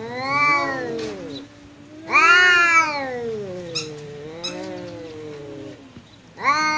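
Domestic cats yowling at each other in a territorial standoff: long, wavering caterwauls that rise and fall in pitch. The loudest comes about two seconds in and trails into a lower drawn-out moan, and a new yowl starts near the end.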